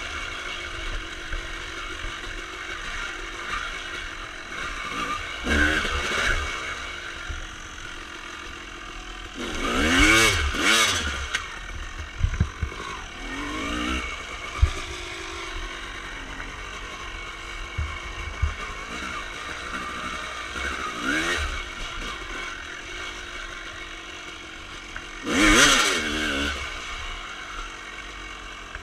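Honda CR250R single-cylinder two-stroke engine with a Pro Circuit exhaust, ridden at low revs and revving up hard twice, about ten seconds in and near the end. A few sharp knocks along the way.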